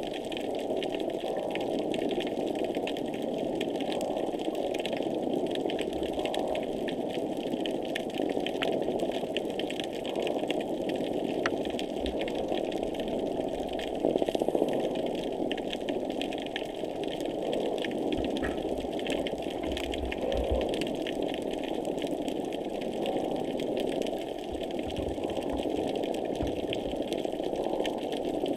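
Underwater noise picked up by a hydrophone near a pier: a steady, machine-like drone with a dense, fast crackle of tiny clicks over it.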